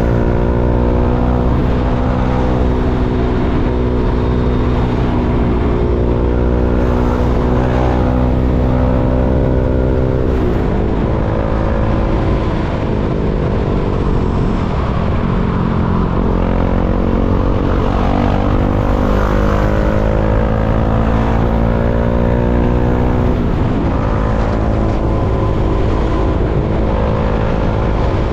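KTM Duke 390's single-cylinder four-stroke engine running under way in stop-and-go traffic. Its note holds steady for long stretches, then drops and picks up again about ten seconds in, around fifteen seconds in, and near the end as the throttle and gears change.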